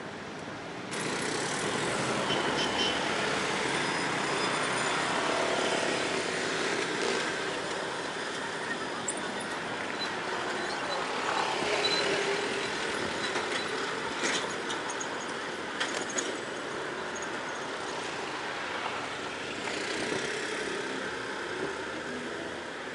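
Street traffic and wind noise heard from an electric kick scooter riding among motorcycles and cars. The noise rises sharply about a second in and then stays steady, with a few brief clicks along the way.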